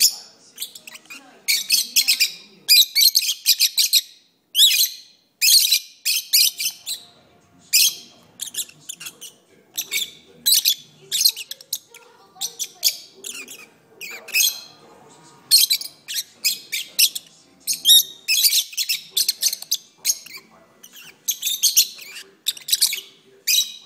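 Lovebirds singing: quick strings of short, high-pitched chirps and squeaks that come in clusters with brief pauses between them.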